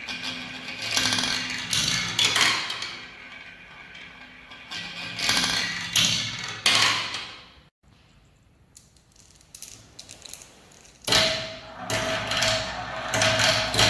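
Marbles rolling and clattering down a marble run track in uneven bursts, with a brief near-silent break about eight seconds in. Near the end the clatter becomes denser and a steady ringing tone runs along with it.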